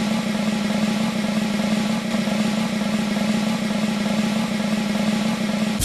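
A steady, unbroken drone with a strong low hum, like an idling engine, cutting off suddenly near the end.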